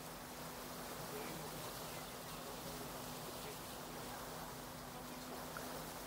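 Motorboat engine running steadily under way, a low even hum, over a constant hiss of rushing water and wind.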